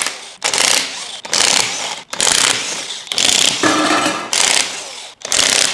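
Cordless impact wrench hammering in about six short bursts, loosening cylinder head bolts.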